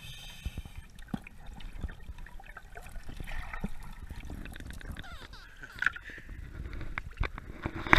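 Water gurgling and bubbling close to the microphone underwater, with small clicks and ticks, then splashing and dripping as it breaks the surface about three-quarters of the way through.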